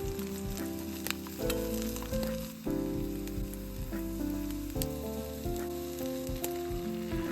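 Background music: chords and melody notes that change every half second or so, over a steady beat.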